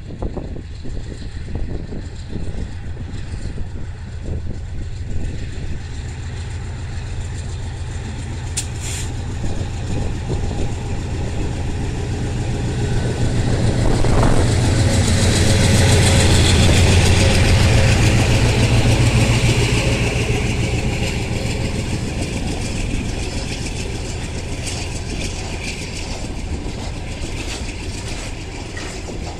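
GE C36-7i diesel-electric locomotive pulling a heavy freight train away from the station, its diesel engine working under load with a low, steady sound. It grows louder as the locomotive passes close, loudest just past halfway, with a falling tone as it goes by. It then eases as the loaded hopper wagons roll past on the rails.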